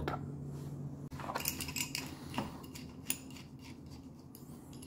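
Milwaukee 8-inch adjustable wrench handled in gloved hands: a handful of light metallic clicks and scrapes from its sliding jaw and worm screw as the jaw is worked.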